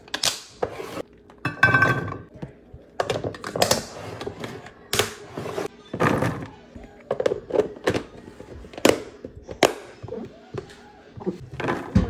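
Food storage containers being handled on a countertop: a lid pressed down and clipped onto a glass container, and sliced vegetables tipped from a plastic colander into plastic tubs. The result is an irregular series of knocks, clicks and clatters.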